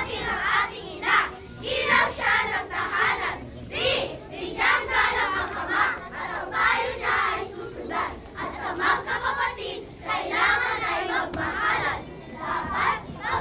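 A large group of children's voices shouting and singing together at once, many high voices overlapping, loud and uneven.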